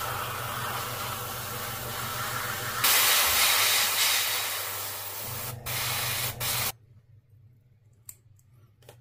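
Airbrush spraying paint with a steady hiss over a low hum. The hiss gets louder about three seconds in, breaks off briefly twice, and stops a little past two-thirds through, leaving a few faint clicks.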